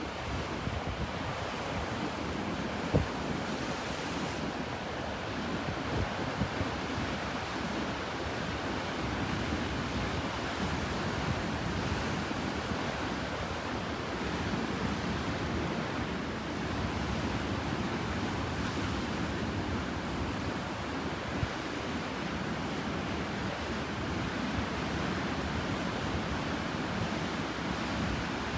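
Sea surf washing and breaking into a cove in a steady, rolling wash, with wind buffeting the microphone. There is one short thump about three seconds in.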